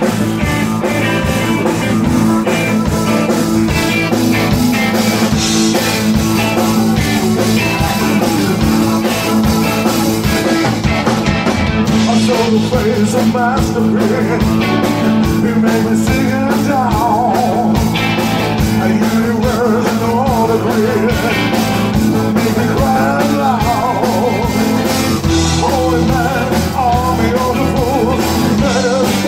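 Live rock band playing an uptempo rock song: drum kit, electric bass, electric guitar and keyboards, with a male lead vocalist singing from about halfway through.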